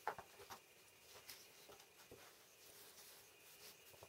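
Near silence with a few faint taps and paper rustles from small electronic components being handled and set down on a paper sheet; the sharpest tap comes just as it begins.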